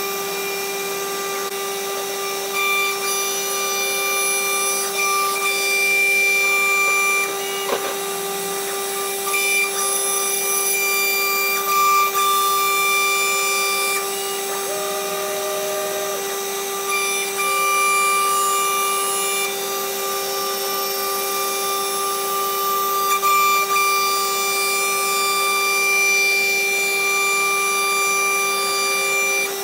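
CNC router spindle whining steadily as the bit cuts a solid-surface sheet, getting louder in several stretches as the cut load changes. One sharp click comes about eight seconds in.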